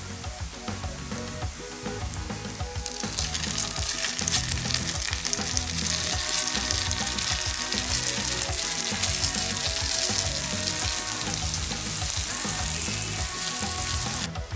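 Sweet potato and potato-starch patties sizzling in butter in a nonstick frying pan. The sizzle swells about three seconds in, as the patties are turned over with a spatula and their uncooked sides meet the hot pan. Soft background music plays underneath.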